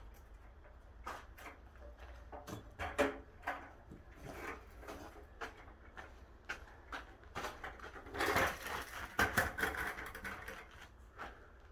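Scattered knocks and clatter from floor-demolition work, with a longer scraping, rustling noise about eight seconds in that is the loudest part.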